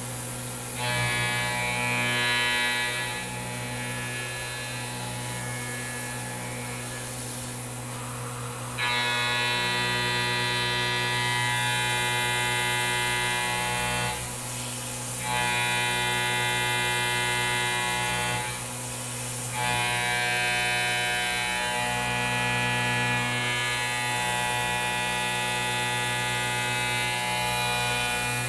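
CNC mill spindle turning at 7,500 RPM, driving a shear hog insert cutter through a metal plate on an adaptive roughing pass. It makes a steady machine whine of many stacked tones. The whine grows louder for several seconds at a time and drops back in between, quietest from about 3 to 9 seconds in.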